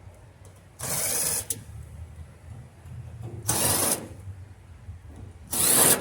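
Screws being backed out of a Samsung dryer's motor housing with a screwdriver: three short bursts of the tool running, each about half a second long.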